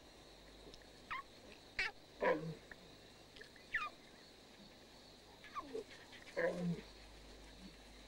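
Lion cubs and a lioness calling softly to each other: about six short calls, each sliding down in pitch, some high and thin, two of them lower and fuller. These are contact calls between a mother and her cubs as they meet.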